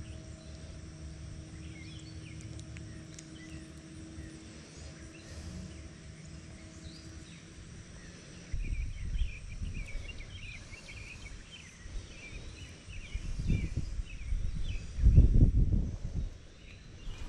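Birds chirping in the background over a steady low hum that fades out about seven seconds in. In the second half, low rumbles come and go on the microphone, loudest about fifteen seconds in.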